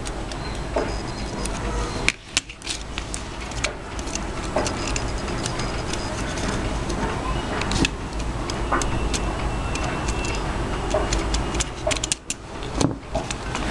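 Scattered small clicks and taps of a Nokia 6030 mobile phone's plastic parts being handled and fitted together, over a steady background hiss.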